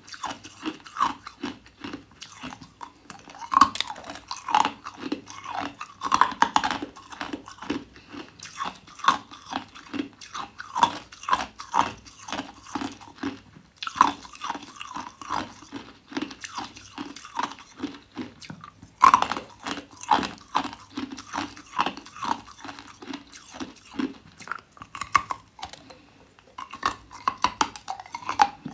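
Hard clear ice being bitten and chewed: dense, rapid crunching and cracking, with a few louder bites, the loudest about 19 seconds in, and short pauses between mouthfuls.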